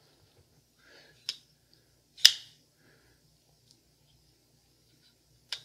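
SixLeaf SL-20 folding knife on ceramic bearings being opened and closed by hand: three sharp clicks of the blade and liner lock, the loudest a little after two seconds in. The action makes what the owner calls a funky sound, which he puts down to the bead-blasted blade finish.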